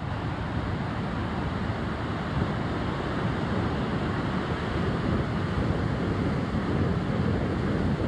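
Stormy sea surf: heavy waves breaking and washing up a sandy beach in a steady, even rush, with a low wind rumble on the microphone.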